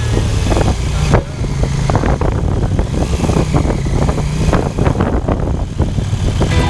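KTM 890 Adventure's parallel-twin engine running while the motorcycle is ridden, with wind noise over the microphone. The engine note drops briefly about a second in and shifts in pitch a few times as the throttle changes.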